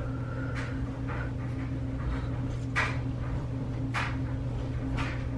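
Kitchen clatter: a few short knocks and clinks of cookware or cupboards, spaced about a second apart in the second half, over a steady low hum.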